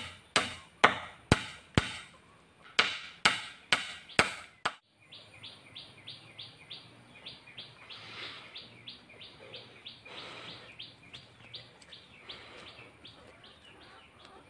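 A hammer pounding on a wooden pole roof frame: about nine sharp blows in two quick runs that stop abruptly. Then a quieter, even run of high chirping, about three chirps a second, over a faint steady high tone.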